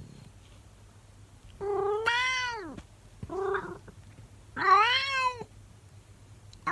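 An elderly calico cat meowing: three drawn-out meows, each rising and then falling in pitch, the middle one short, with a fourth starting at the very end.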